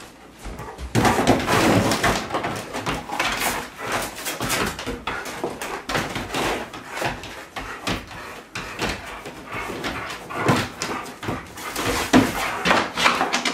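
A Bernese Mountain Dog tearing and chewing a cardboard box. Irregular crunching and ripping begins about a second in and goes on without a break.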